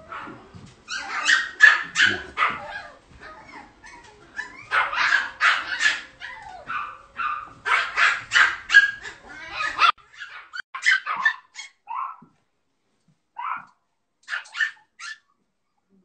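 Poodle puppy barking in rapid runs of short, sharp barks, three bursts in the first ten seconds, then only a few scattered barks with gaps between them.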